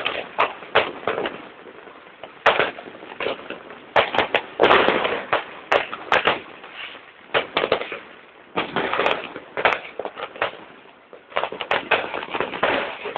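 Aerial fireworks bursting: irregular sharp bangs and crackling, often in quick clusters, with a dense run of crackle about four to five seconds in.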